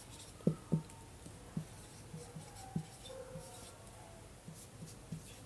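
Handwriting: faint strokes with a dozen or so soft, irregular taps as the writing tip meets the surface.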